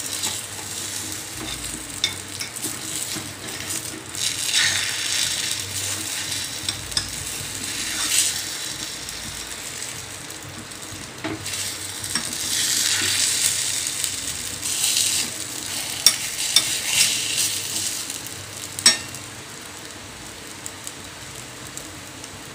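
Egg omelette sizzling in oil in a small metal tempering ladle while a metal spoon scrapes under it and turns it over. The sizzle swells and fades, a few sharp clicks of spoon on ladle come near the end, then the sizzle settles lower and steady.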